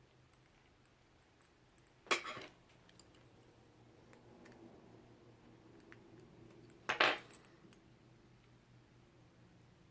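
Small metal parts of a taken-apart padlock clinking as they are handled: two short clatters, about two seconds in and about seven seconds in, with a few light ticks between.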